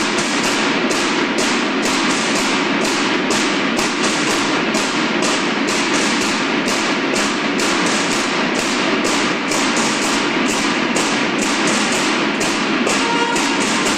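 Snare drums of a banda de guerra (school drum and bugle corps) playing a steady marching cadence of rapid, evenly spaced strokes. Near the end the bugles come in over the drums.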